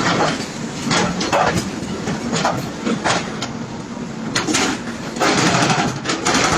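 Excavator engine running under load, with repeated irregular cracking and crunching knocks as a house is broken up.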